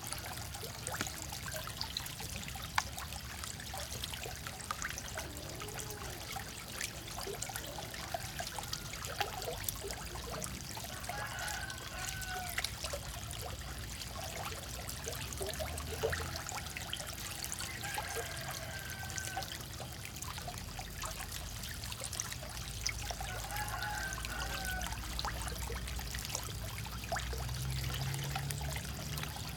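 Water splashing and trickling with many small plops and clicks as a dense crowd of small farmed frogs stirs at the surface of a shallow tank.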